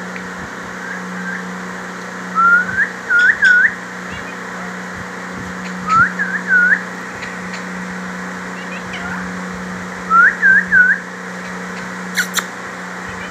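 Rose-ringed parakeet whistling: three bursts of short rising whistle notes, three or four notes to a burst, a few seconds apart. A sharp click comes near the end.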